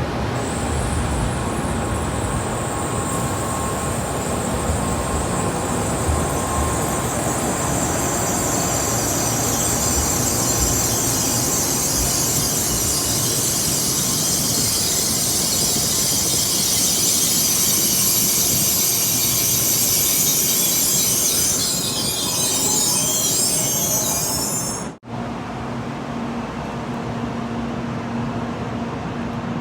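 Sanyo Shinkansen train moving along the station platform: a long, steady rush of wheel and air noise with a high hiss that builds toward the end. It cuts off abruptly about 25 seconds in, and a quieter steady hum follows.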